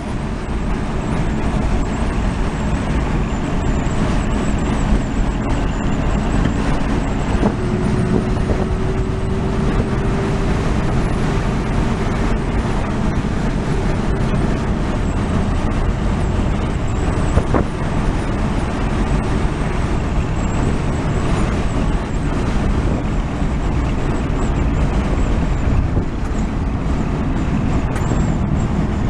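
Steady engine and road noise of a vehicle driving at speed, heard from inside its cabin.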